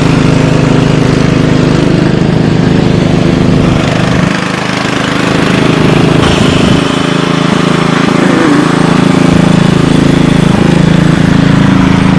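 Gasoline lawn mower engine running steadily while cutting overgrown grass; its low note briefly weakens about four seconds in, then comes back.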